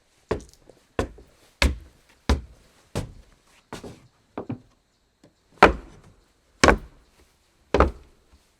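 Footsteps on a wooden floor: seven even steps, about one and a half a second, then a short pause and three louder, slower steps about a second apart.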